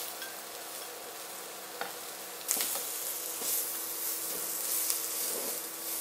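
Julienned carrots and sliced red onion sizzling in oil in a stainless steel frying pan while a spatula stirs them. The sizzle steps up about two and a half seconds in, with a few light scrapes of the spatula on the pan.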